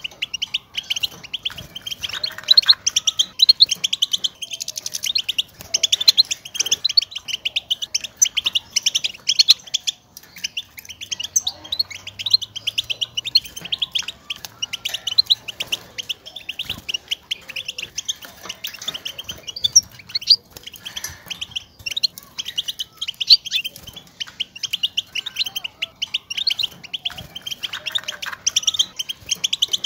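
European goldfinch call notes: a fast, busy chatter of short, high twittering chirps with hardly a break. These are the contact calls goldfinches use to tell each other where they are.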